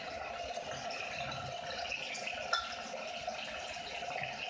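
Apple slices sizzling in a frying pan on a gas burner, a steady crackling hiss, with a single sharp click about halfway through.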